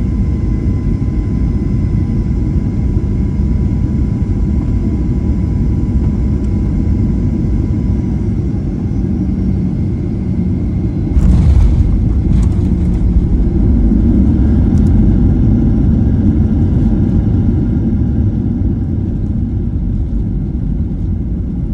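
Inside the cabin of a Boeing 737 landing: steady jet-engine rumble with a faint whine on final approach, a sudden jolt of noise about halfway through as the wheels touch down, then a louder rumble as the plane slows on the runway with its spoilers up, easing off near the end.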